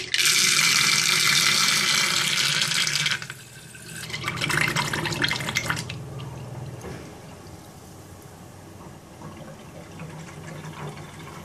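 Backed-up sewage water in a kitchen sink draining through a whirlpool at the plug hole, the vortex sucking air in a loud hissing slurp for about three seconds. A second, gurgling burst follows about four seconds in, then quieter gurgling over a low steady hum. The water had come back up the sink through a blocked building drain and is now running away again.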